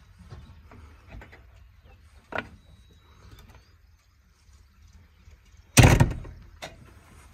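JCB 3DX backhoe loader's glass cab door: a sharp latch click about two and a half seconds in as it opens, then the door slammed shut with one loud bang near the end. A low steady rumble runs underneath.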